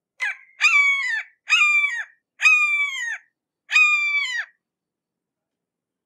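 Red-shouldered hawk calling a series of five loud, harsh kee-ah calls. A short first note is followed by four drawn-out calls about once a second, each dropping in pitch at the end.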